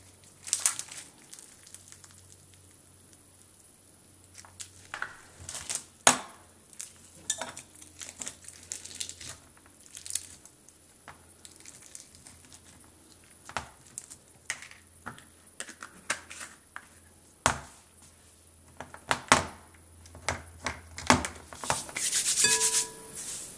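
Crunchy fishbowl slime (clear-glue slime packed with fishbowl beads) squeezed and pressed in the hands, giving irregular crackling pops. Near the end, loose floam beads rattle and patter as hands rub them over a glass bowl.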